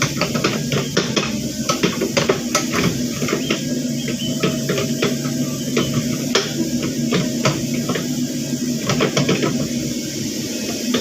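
Caterpillar 307.5 mini excavator's diesel engine running steadily under working load while digging out a ditch, with frequent sharp metallic clicks and clanks from the machine.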